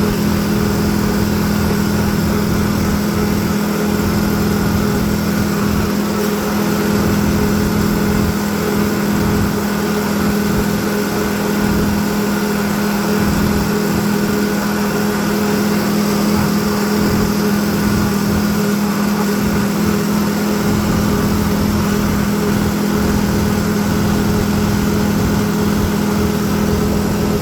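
Farm tractor engine running steadily at a constant speed on road travel, a continuous even drone.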